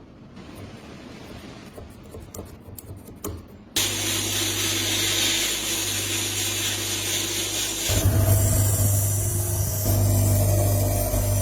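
A few light clicks of metal parts being handled, then an electric power tool starts suddenly about four seconds in and runs steadily with a low hum and a hiss of abrasion, getting louder about eight seconds in as it bears into the work.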